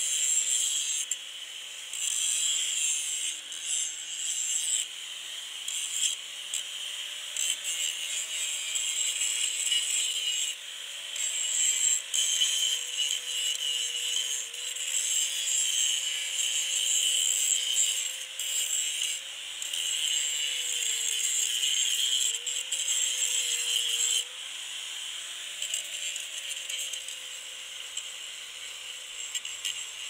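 A Makita 4½-inch angle grinder with a general-purpose grinding disc grinding heavy rust off the steel of a 1968 Case 580CK backhoe. The motor's whine dips in pitch as the disc bites, and the grinding hiss swells and fades with the pressure. It turns lighter and quieter for the last several seconds.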